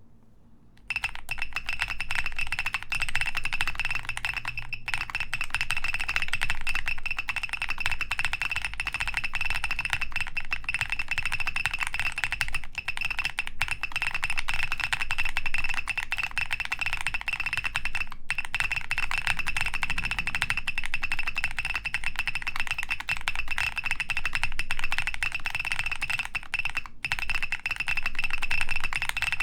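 Fast, continuous typing on a G-Square Studio Vintage 60S mechanical keyboard with Vertex V-One switches, DCS keycaps and a polycarbonate plate, in beeper mode: a high-pitched electronic beep sounds along with the key clacks. It starts about a second in.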